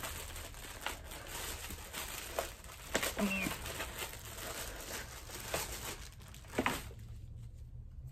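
Clear plastic poly bag crinkling and rustling as it is pulled and torn open by hand, with several sharp crackles; it goes quiet about seven seconds in.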